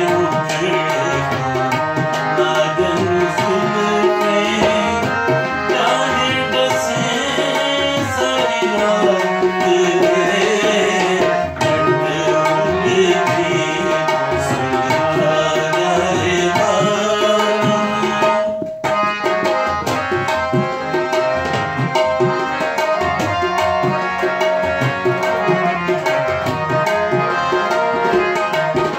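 Tabla and harmonium playing together, the harmonium holding sustained chords under quick tabla strokes, with a man singing a ghazal-style melody over them for part of the time.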